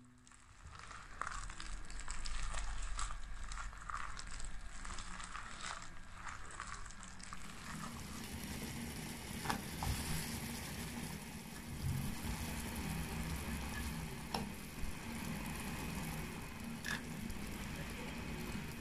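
Hand kneading and slapping seasoned ground pork paste in a bowl, squishing at a steady rhythm of about one stroke a second. Then water simmering in a steel pot on a gas burner, with a few sharp plops as pieces of pork paste are dropped in.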